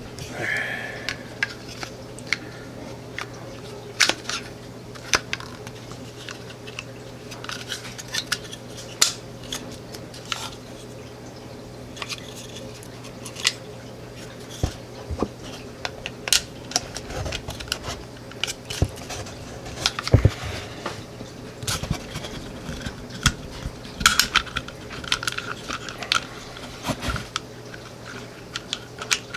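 Irregular small metal clicks, clinks and scrapes of Sig Sauer P320 pistol parts being handled and fitted back together during reassembly, over a steady low hum.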